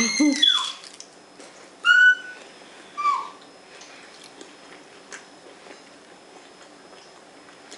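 A small child's high-pitched squeals: a long gliding squeal at the start, then two short calls about two and three seconds in, the second falling in pitch. Between and after them, faint clicks from crunchy chewing of a lettuce taco.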